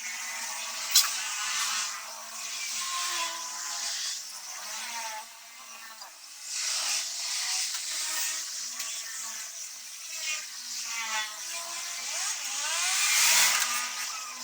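High-pitched whirring of a small electric motor, its pitch rising and falling as the speed changes, with a sharp click about a second in and a louder swell near the end.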